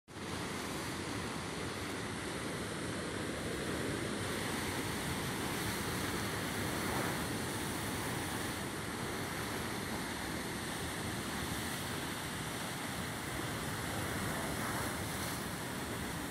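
Heavy sea surf breaking over a rocky ledge and washing up the shore in foam: a steady, unbroken rush of water that swells slightly now and then.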